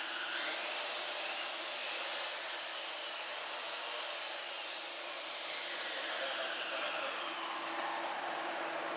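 Corded circular saw running and cutting into a particleboard countertop. Its high whine rises in the first second and then slowly sinks in pitch over the second half.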